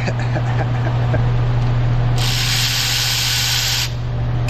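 A steady low hum throughout, with a loud hiss of spray lasting under two seconds that starts about two seconds in.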